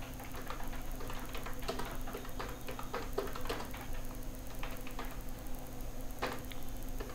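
Computer keyboard keys clicking in an irregular run of typing, over a faint steady hum.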